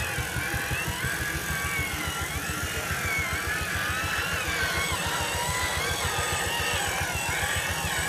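Electric motor and gearbox of a radio-controlled 6x6 timber truck whining, the pitch rising and falling with the throttle, over a low rumble.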